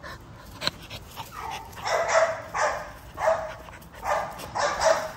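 XL American bully puppies play-barking and yipping at each other: a string of short barks, about one every two-thirds of a second, starting about a second and a half in.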